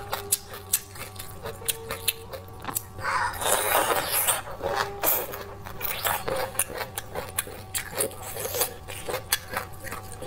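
Close-miked eating sounds: biting and chewing with many small sharp clicks, and a longer rustling scrape about three seconds in.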